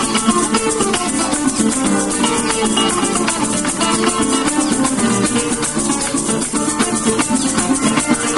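Venezuelan folk music: plucked string instruments play a melody over a quick, even maraca shake.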